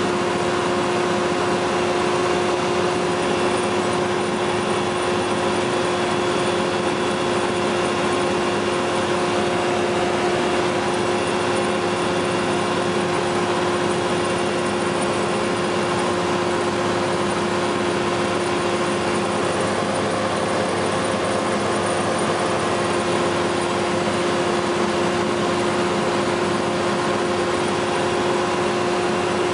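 FlightStar ultralight's engine and propeller running steadily in cruising flight, an even drone with a constant pitch over a hiss of rushing air.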